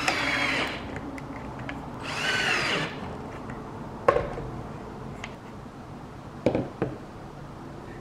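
Cordless drill-driver driving screws through a metal folding table-leg bracket into a wooden leg: two short runs of motor whine, each under a second. Then a sharp knock about four seconds in and two more knocks later on.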